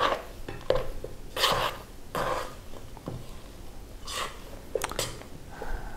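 A teaspoon stirring thick chocolate chip cookie dough in a stainless steel mixing bowl: short scraping strokes at uneven intervals, roughly one a second.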